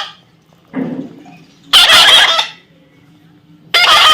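A parrot giving loud, harsh screeching calls: a short one about a second in, then two long ones about two seconds apart.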